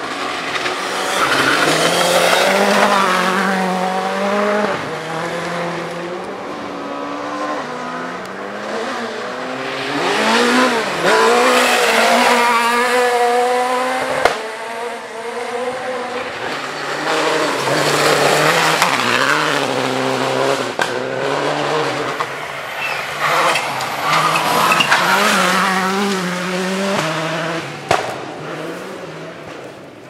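Rally cars at full throttle on a gravel stage, engines revving up hard and dropping back at each gear change as several cars pass in turn, with a sharp crack about 14 seconds in and another near the end.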